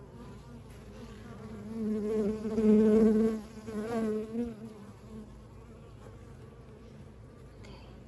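Honeybees buzzing at an open hive. About two seconds in, one bee's wavering hum grows loud for a couple of seconds, then fades back into the colony's low background buzz.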